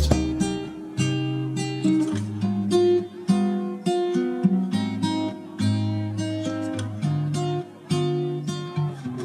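Background music: acoustic guitar plucking and strumming chords at an easy pace.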